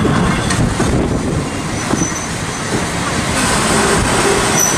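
Heritage railway carriage wheels rolling on the rails with a steady rumble as the steam train runs slowly into a station. A faint high wheel or brake squeal comes in about three seconds in.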